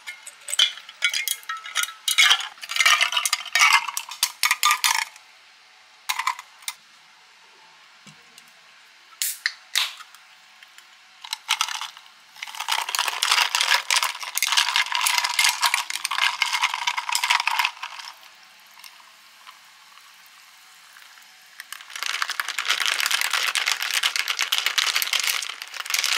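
A long spoon stirs pomelo syrup in a glass jar, clinking rapidly against the glass for about five seconds, followed by a few separate clinks. Soda water is then poured in over ice twice, once about halfway through and again near the end, each pour a steady fizzing hiss lasting several seconds.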